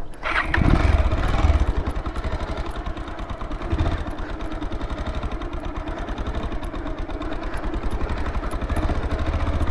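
Bajaj Pulsar 220 motorcycle's single-cylinder engine running steadily at a low, pulsing note, swelling briefly about a second in. The engine is noisier than it should be, which the rider puts down to a worn cam chain and rocker arms.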